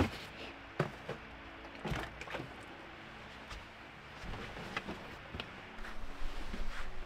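Scattered light knocks, thuds and rustling from a person moving about inside a small truck-bed camper and handling a foam sleeping pad and gear. Near the end, louder bumping and rubbing close to the microphone.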